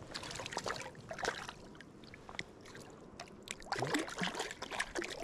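Water splashing and sloshing in two spells, one at the start and another near the end.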